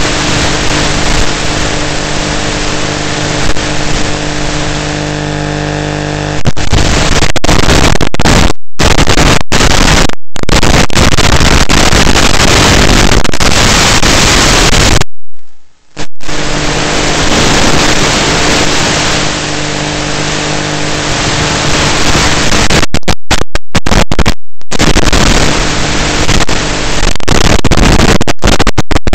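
Loud hiss of static from an analog FPV video link's audio channel. For about the first six seconds a steady hum with several tones runs under it. The hiss cuts out abruptly several times, once for about a second in the middle.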